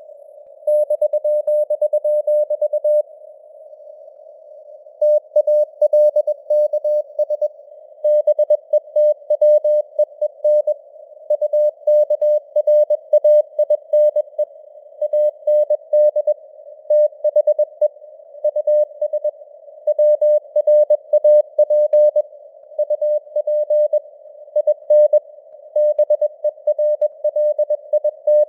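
Morse code (CW) sent at 21 words per minute: a single mid-pitched tone keyed in dots and dashes over a narrow band of simulated radio hiss. It pauses for about two seconds shortly after the start.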